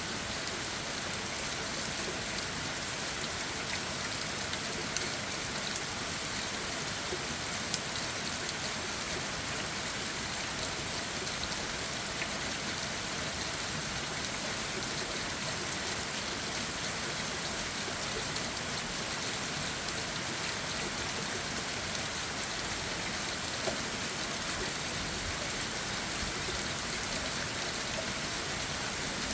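Steady rain falling on leaves and ground: an even hiss with a few sharper drop ticks now and then.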